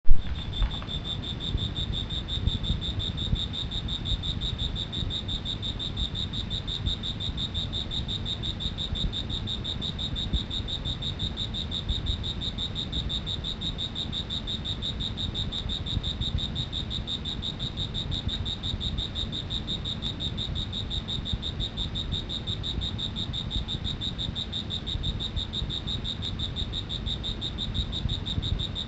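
A cricket trilling without pause in one high, rapidly pulsing note, over a low rumble. The sound starts with a sharp click.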